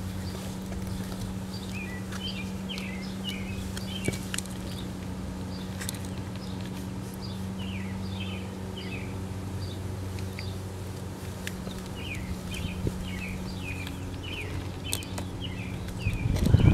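Small birds chirping in quick runs of short, falling notes, repeated throughout, over a steady low hum. Low rumbling gusts come in near the end.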